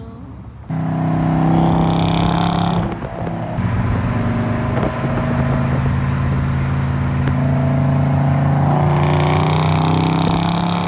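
Several cars driving at speed on a highway alongside, their engines and exhausts giving a loud steady drone, heard from inside a moving car. It starts suddenly about a second in.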